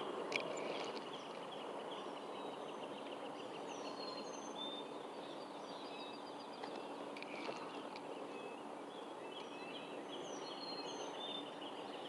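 Songbirds chirping and whistling in short high calls, again and again, over a steady outdoor background hiss.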